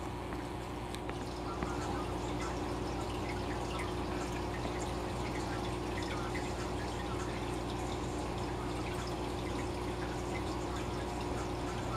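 Fish tank water bubbling and trickling steadily, with many small drips and splashes, over a steady low hum.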